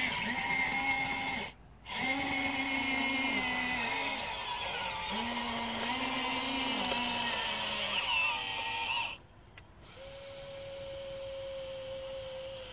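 Whining of a radio-controlled model Liebherr 634 crawler loader's electric motors and hydraulics, its pitch stepping up and down as the machine works its bucket. It stops briefly twice, and near the end it settles into a steadier, higher whine.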